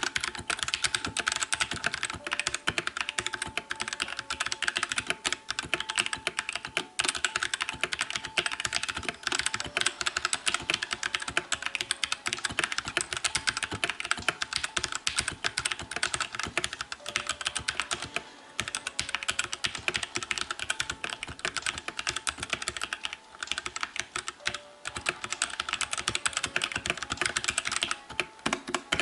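Fast, continuous touch-typing on a Royal Kludge RK71 mechanical keyboard, a quick, steady run of key clicks from its stock switches.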